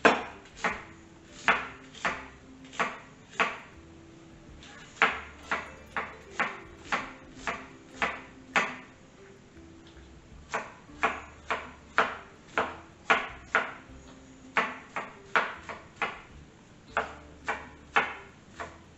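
Chef's knife chopping onion on a wooden cutting board: sharp knocks of the blade striking the board, one or two a second, in runs broken by short pauses.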